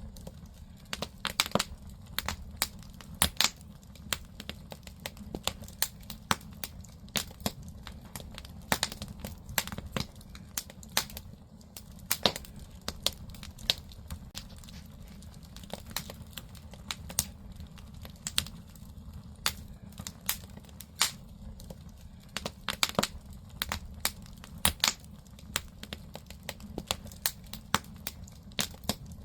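Firewood burning in a traditional Korean agungi firebox: irregular sharp crackles and pops, several a second, over a steady low rumble of the fire.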